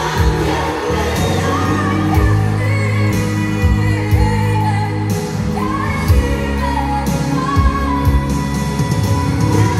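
A song with a sung voice over steady bass notes, played through JBL LX44 loudspeakers driven by an Onkyo A-9310 amplifier.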